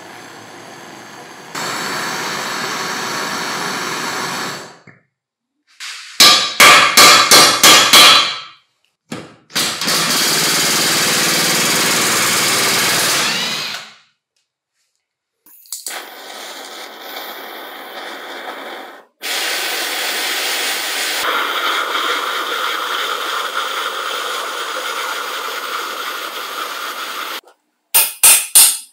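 Power tools at work on the metal parts of a vintage ice shaver during restoration, heard in a string of short clips that start and stop abruptly. Most are steady runs of a motor-driven tool; about six seconds in there is a stretch of rapid, loud repeated strokes, and the long run near the end changes pitch partway through.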